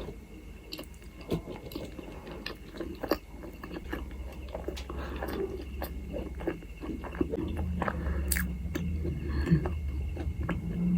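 Close-up chewing and biting of food, with many small irregular wet mouth clicks.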